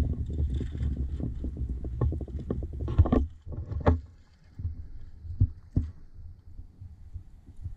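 Wind rumbling on the microphone of a moving handheld camera, with rapid light taps of footsteps on concrete for the first few seconds, then a few sharp knocks and quieter rustle.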